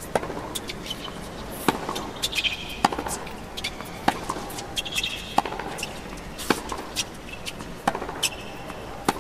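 Tennis rally: rackets strike the ball back and forth in sharp pops, about eight strokes, roughly one every second and a quarter, alternating between the two players.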